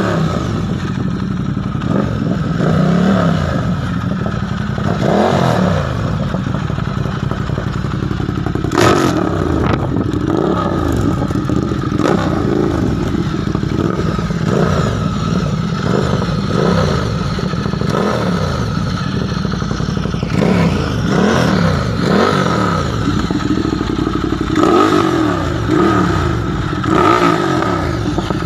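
Ducati Monster 1200's L-twin engine running and being revved over and over, the revs rising and falling every second or two.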